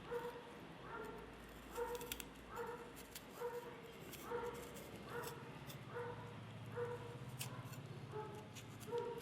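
A dog barking steadily over and over, about one short bark every second, with scattered sharp clicks and a low hum from about six seconds in.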